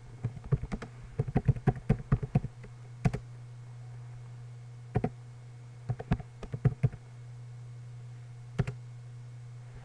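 Computer keyboard typing: a quick run of keystrokes over the first two and a half seconds, then single keys and a short flurry a second or two apart, over a steady low hum.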